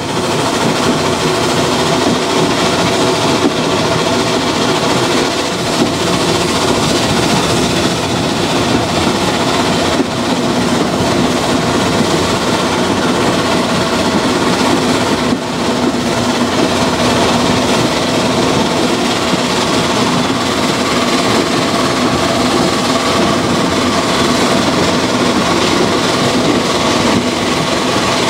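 Steam tank locomotive running under steam with a train, heard from its bunker end: a steady, loud mix of engine working and wheels on the rails.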